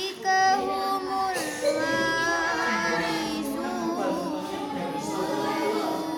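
A single voice chanting Quranic recitation in a melodic style, drawing out long held notes with wavering ornaments between them.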